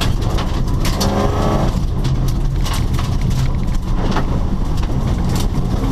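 Rally car engine running loud over a heavy rumble, with sharp cracks and clatter scattered throughout.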